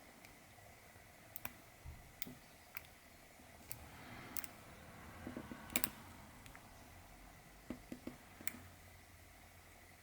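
A hook pick and tension wrench working the pins of an iFam M-40 padlock: faint, irregular small metallic clicks, about a dozen, the loudest about six seconds in.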